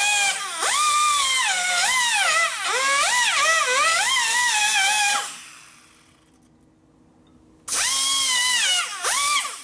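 High-speed rotary power tool whining with a hiss, its pitch dipping and rising again and again. It winds down and stops about five seconds in, then starts up sharply again near the end.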